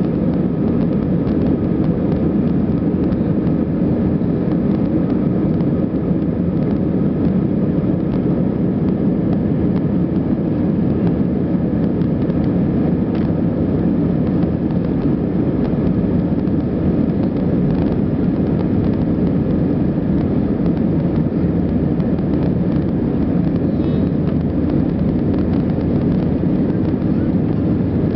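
Airbus A320-232 at takeoff power during its takeoff roll, heard inside the cabin from a window seat over the wing: its IAE V2500 engines and the airflow make a loud, steady, even noise.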